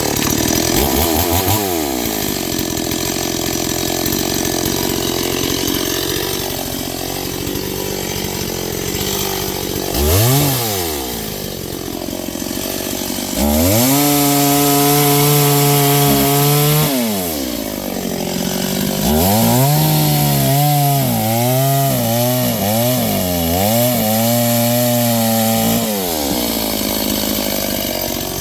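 Noker 381 72cc two-stroke chainsaw running after a pull-start, revved several times. There is a short rev about a third of the way in and a held full-throttle rev near the middle. The engine pitch then rises and falls rapidly for several seconds as the saw cuts branches of semi-rotted oak.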